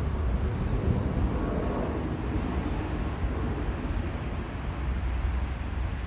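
Steady low outdoor rumble, with two faint, brief high bird chirps, one about two seconds in and one near the end.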